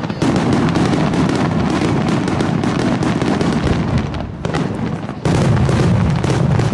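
Aerial firework shells bursting in rapid succession, a dense barrage of booms and crackles. It eases briefly about four seconds in, then picks up again loudly just past five seconds.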